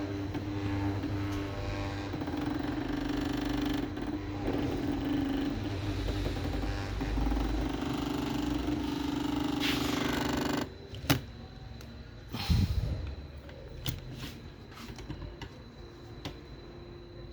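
3D printer Z-axis stepper motor running with a steady electric hum as it drives the lead screw; the axis is still getting stuck. The hum cuts off suddenly about two thirds of the way through, and a few sharp knocks and clicks follow.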